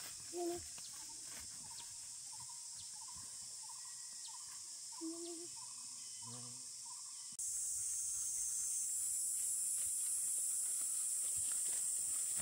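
Steady high-pitched drone of insects in the grass and scrub, with a few faint short chirps in the first half. The insect chorus becomes louder about seven seconds in.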